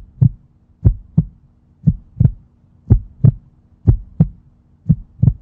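Heartbeat sound effect: six double 'lub-dub' thumps, evenly spaced about once a second, over a faint steady low hum.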